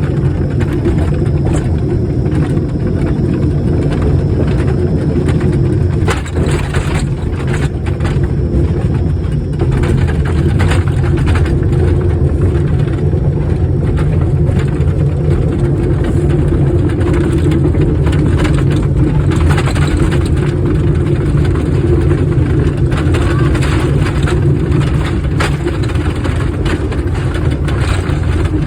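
Small trolley train running along a narrow track, a steady heavy rumble with frequent rattling knocks from the cars jolting on the rails.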